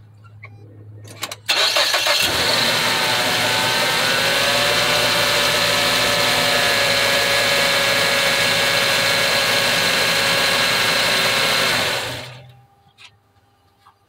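2010 Mazda 6 engine cranking and catching about a second and a half in, its revs falling back over the next few seconds to a steady idle, with the accessory belt running on a newly replaced tensioner. The engine sound dies away near the end.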